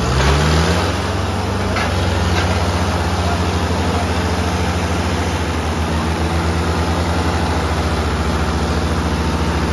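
Tractor diesel engines, a Mahindra Arjun Ultra-1 and a Sonalika, running hard under full load as they pull against each other in a tug-of-war. The engine note rises in the first second, then holds steady with a fast, even pulsing beat.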